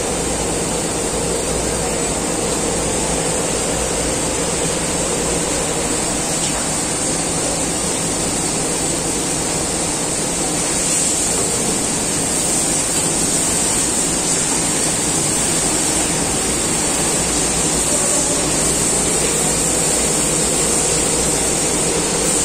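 Sample yarn warping machine running: a steady whirring hiss with a faint hum underneath, a little louder from about halfway through.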